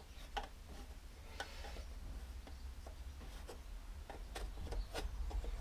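Pencil marking on a wooden board: faint scratchy strokes among scattered light ticks and taps from handling the wood.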